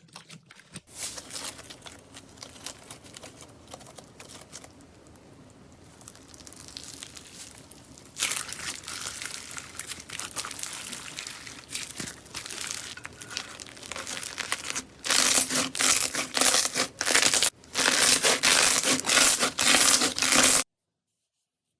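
Slime being squeezed and worked by hand, making dense crackling and popping. It gets louder about a third of the way in and loudest in the last few seconds, then stops abruptly near the end.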